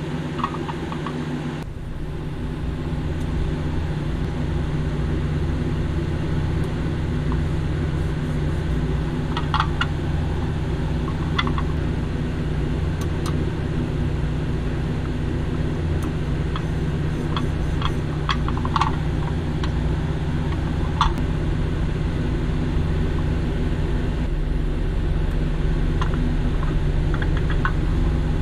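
A steady low machine hum, with scattered light clicks and taps from small plastic toy-van parts and decal paper being handled.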